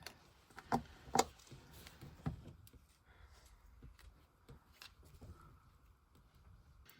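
A few small sharp clicks and taps, the loudest about a second in, with fainter ticks after: nail-art tools and rhinestones being handled as gems are taken off a nail.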